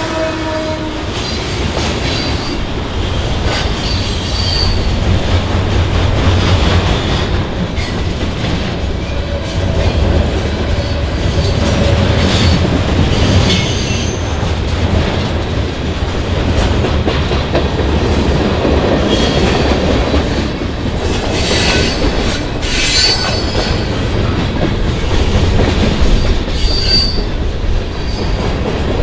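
A Canadian National freight train rolling past: a steady rumble of the cars' wheels on the rails, with brief high wheel squeals now and then.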